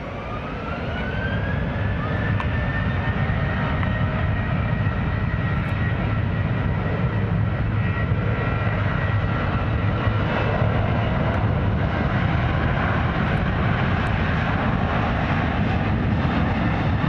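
Jet airliner engines spooling up: a whine rises in pitch over the first two seconds as the sound grows louder, then holds steady and loud with the engine noise.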